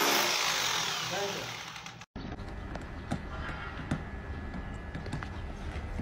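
Electric rotary hammer with a chisel bit breaking up a concrete floor: a dense, noisy hammering that cuts off suddenly about two seconds in. After it comes a low steady rumble with a few faint clicks.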